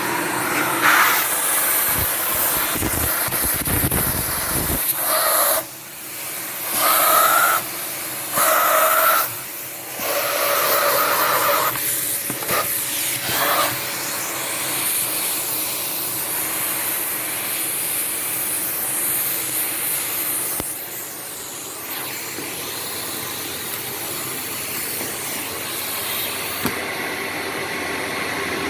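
Bush bagged cylinder vacuum cleaner running at its highest power setting, a steady airy hiss. Between about five and fourteen seconds in, its sound swells and dips several times, then it runs evenly.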